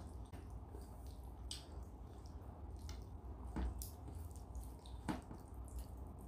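Fingers mixing rice and dal on a metal plate: soft wet squishing, with a few sharper clicks now and then.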